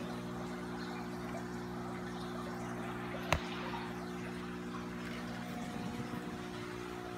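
Steady hum of running aquarium equipment with water trickling and splashing, and a single sharp click about three seconds in.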